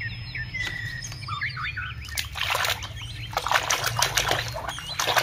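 A hand splashing and sloshing through a basin of thick, muddy water, starting about two seconds in, with quick irregular splashes. High bird-like chirps come before it.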